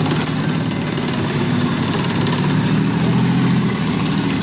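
Main battle tank's engine running steadily as the tank drives on its tracks, a low hum under a broad rush.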